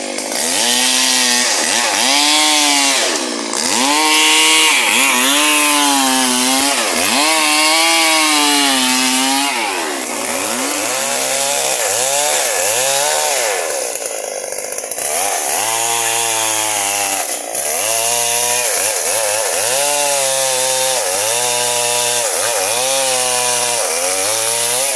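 Stihl MS 382 two-stroke chainsaw running while cutting wood, loud, its engine pitch rising and falling over and over, about once every one to two seconds, as it revs and loads in the cut.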